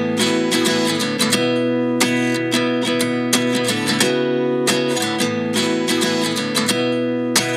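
Background music: an instrumental stretch of a pop song carried by a strummed acoustic guitar with a steady rhythm.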